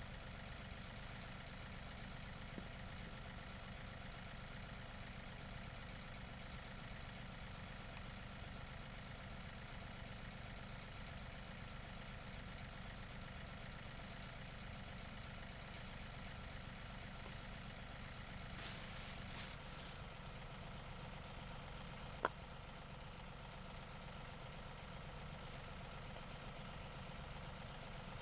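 Tractor engine running steadily, with a brief hiss about two-thirds of the way in and a single sharp click shortly after.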